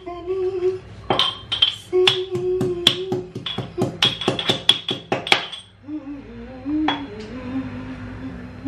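A quick run of sharp metal clinks, a spoon striking steel kitchenware, for about five seconds, then a couple of single clinks. A woman hums a tune over it throughout.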